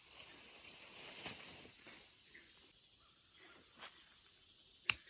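Quiet outdoor background with a faint high insect hum that thins out partway through, a couple of soft knocks, and one sharp click near the end.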